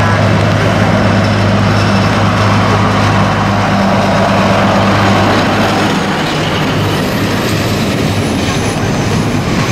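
Vintage diesel locomotive pulling away with a train, its engine a steady low drone as it passes. After about six seconds the drone gives way to the rumble and clatter of the passenger coaches rolling past.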